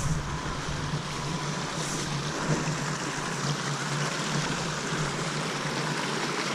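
A small moorland stream running and splashing steadily over rocks in a clough.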